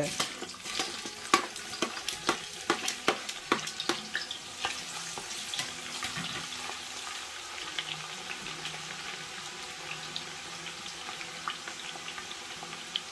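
Onions frying in hot palm oil in a large pot, sizzling. Quick knocks and clatter of stirring fill the first few seconds, then the sizzle settles to a steady hiss.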